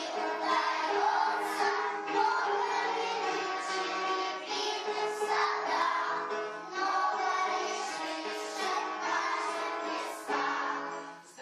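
Children singing a song together over musical accompaniment, with a brief dip in loudness near the end.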